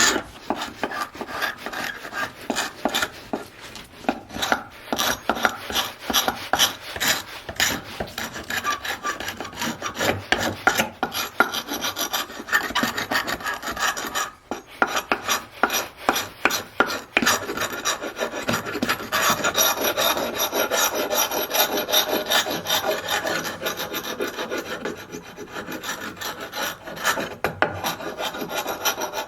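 Steel hand scraper being drawn over a wooden chair part, taking the old finish down to bare wood in quick repeated rasping strokes, with a short pause about fourteen seconds in.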